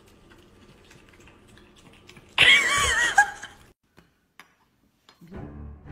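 French bulldog letting out a loud, wavering cry about two and a half seconds in, lasting about a second, while its nails are being clipped. A low hum starts near the end.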